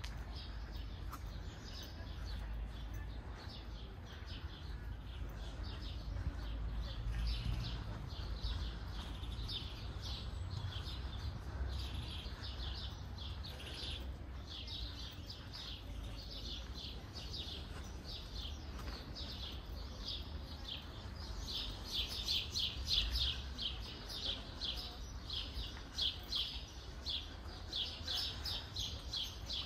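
Birds chirping in quick runs of short high notes that grow busier after about twenty seconds, over a steady low rumble.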